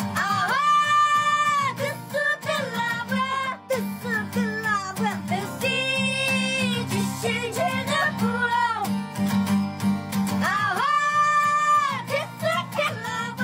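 Men singing a song together over a strummed acoustic guitar, with long held notes about half a second in and again near the end.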